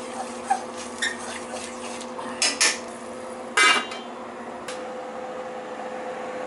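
A spoon clinking and scraping against a stainless steel saucepan of rice pilaf, then a glass pot lid set on the pan with a ringing clatter about three and a half seconds in. A single click follows about a second later.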